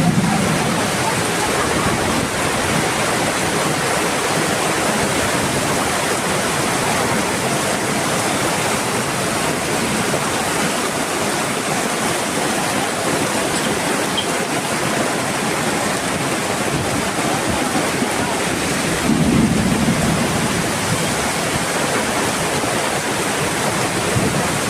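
Heavy rain pouring down: a steady, dense hiss of a downpour, with a brief louder low swell about nineteen seconds in.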